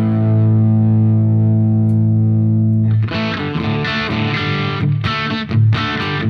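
Overdriven electric guitar through an Origin Effects Revival Drive pedal, set on its orange side, into a Diezel Schmidt amp. A chord rings out for about three seconds, then a quick run of picked chords and notes follows.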